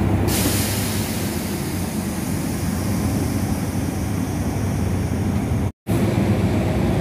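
Diesel locomotive idling with a steady low rumble under the station roof. About a third of a second in, a hiss starts suddenly and slowly fades over several seconds. The sound breaks off for a moment near the end.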